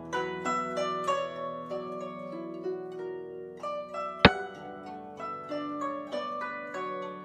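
Background music of plucked zither-like strings, one note after another over a held low tone. About four seconds in comes one sharp click, the sound effect of a xiangqi piece being moved on the board.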